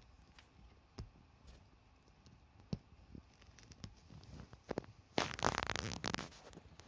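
Rustling and handling noise: scattered light taps and scrapes, then a louder crinkling rustle lasting about a second, about five seconds in.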